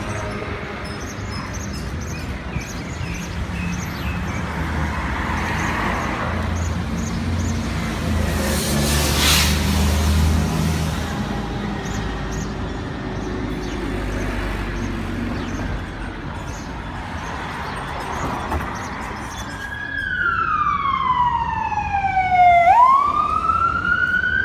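City street traffic noise with vehicle engines running. Near the end an emergency-vehicle siren wails, its pitch sweeping down and then back up, and it becomes the loudest sound.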